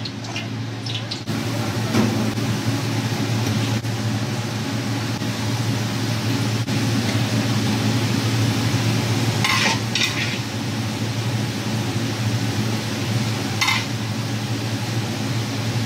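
Squid and vegetables simmering and sizzling in a pan over a steady low hum, with a few sharp clicks and short scrapes of a utensil against the pan around the middle and near the end.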